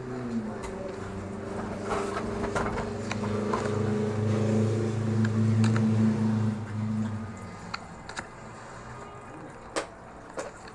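A steady low hum that stops about seven seconds in, with scattered light clicks throughout.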